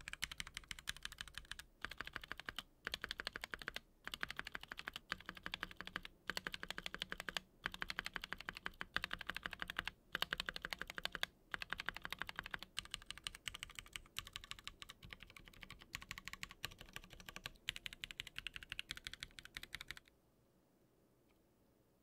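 Steady fast typing on a Platinum PT990 custom mechanical keyboard built with an aluminium plate, Prevail Nebula switches, TX stabilisers and GMK keycaps. It gives a run of crisp, clacky keystrokes with a few short breaks, and the typing stops near the end.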